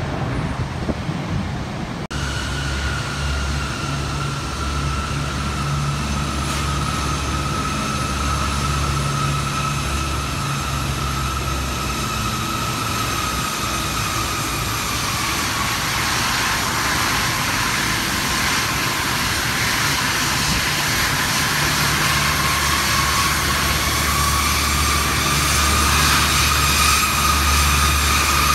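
A Bombardier CRJ-900 regional jet's twin rear-mounted turbofans running at taxi power as it pulls up to the gate. A steady high whine sits over a low rumble, its pitch sagging slightly and then rising again, and it grows a little louder near the end.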